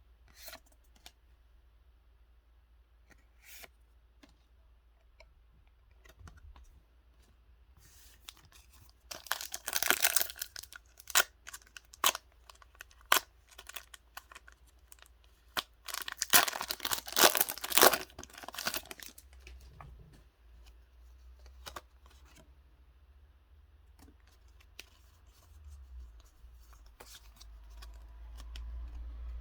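Pokémon card packaging being torn open: two loud tearing rips, about nine seconds in and again about sixteen seconds in, among light clicks and rustles of handling.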